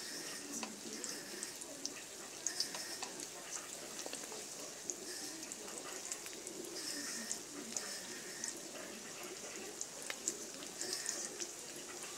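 Food sizzling gently in hot oil in a metal pan, with scattered light clicks of tongs turning the pieces.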